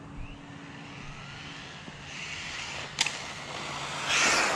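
Small electric RC drift truck driving: a faint rising motor whine, a sharp click about three seconds in, then a loud rushing noise near the end as it runs close by.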